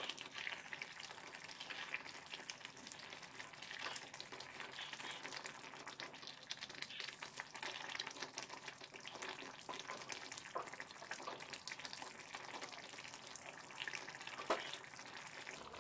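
Wooden spatula stirring and scraping through chunks of mutton in a thick curd-based gravy in a kadai, with the gravy sizzling faintly over a low flame; one louder tap near the end.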